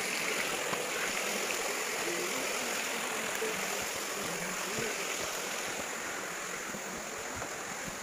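Steady rushing of a shallow forest stream flowing over rocks.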